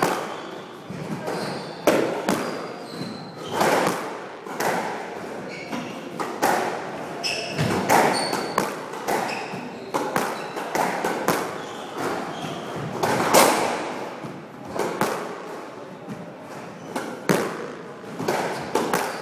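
Squash ball being hit in a rally: sharp racket strikes and ball smacks off the court walls, each with a short echo. They come irregularly, about one a second and often in quick pairs.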